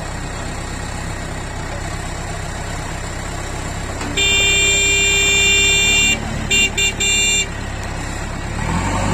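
A tractor's diesel engine idling. About four seconds in, a vehicle horn gives one long blast of about two seconds, then three short toots. Near the end the engine revs up and gets louder.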